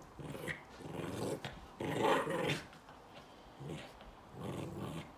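Small chihuahua–silky terrier mix growling in repeated bursts while mouthing and worrying a plush owl toy, the loudest growl about two seconds in: play growling.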